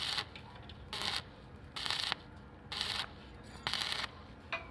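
Rhythmic hand scraping or rasping strokes, about one a second, each a short hissing rasp.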